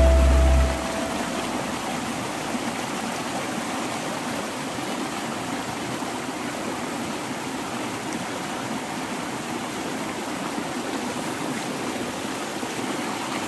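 A boulder-strewn hill river rushing steadily over rocks. A music track cuts off under a second in.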